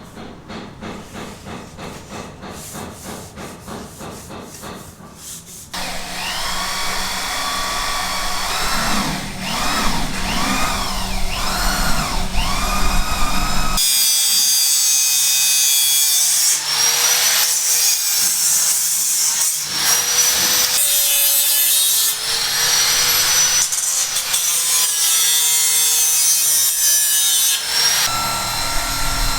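Construction work with tools: a quieter run of rhythmic sawing or rasping strokes for the first few seconds, then louder cutting with squealing, wavering tones and harsh high-pitched noise.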